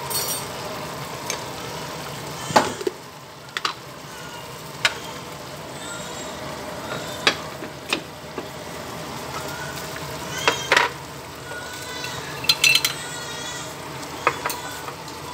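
A pot of soup simmering with a steady bubbling hiss, broken by sharp clinks and knocks of a spoon against a glass seasoning jar and the pot as seasoning is spooned in; a few of the clinks ring briefly.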